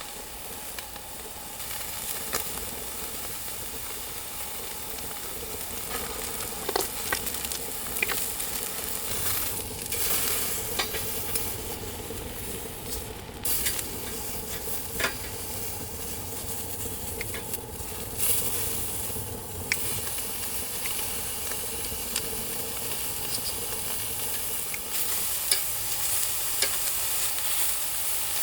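Food frying and sizzling in a pan, with scattered clicks and scrapes of a utensil stirring it. The sizzle swells louder around ten seconds in, again around eighteen seconds, and near the end.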